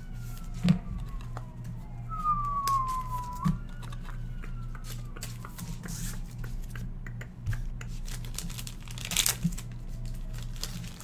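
Trading cards being handled and sorted by hand: crinkling plastic and card stock with a few sharp clicks as cards and holders tap against each other and the table, over a steady low hum.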